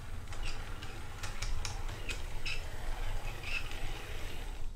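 OO gauge model steam locomotive running along a test track on its first run under its own power, with a low running rumble and irregular light clicks from the wheels on the rails. It is running smoothly with no running-in yet.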